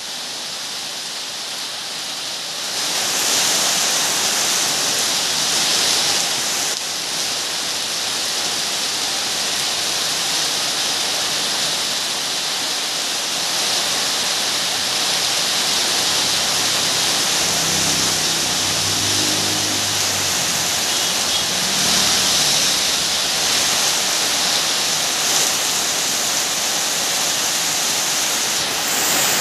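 Heavy rain pouring steadily onto a paved road, a dense even hiss that grows louder about three seconds in.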